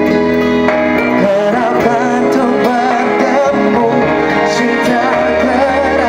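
A man singing a pop ballad live into a handheld microphone over instrumental accompaniment, his held notes wavering with vibrato.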